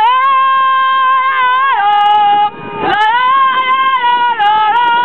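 A horn sounding in two long blasts, each about two and a half seconds, with a short break between them; its steady pitch drops a step partway through each blast.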